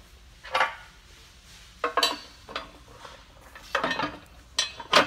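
Metal bracket of an auger flip hitch mounting frame clanking against the frame as it is slid down and seated by hand: about five short, irregular metallic knocks and clinks.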